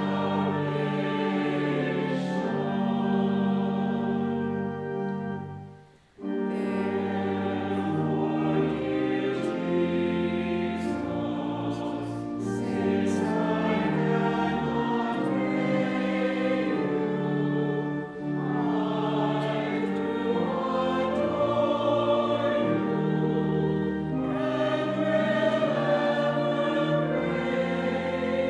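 A church choir and congregation sing a hymn with pipe organ accompaniment, in sustained chords. The music breaks off briefly about six seconds in, then resumes.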